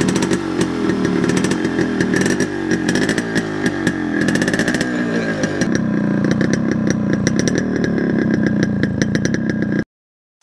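Yamaha RX100's two-stroke single-cylinder engine running through its stock silencer on a cold start after two years standing, revved up and down a few times in the middle. It stops abruptly near the end.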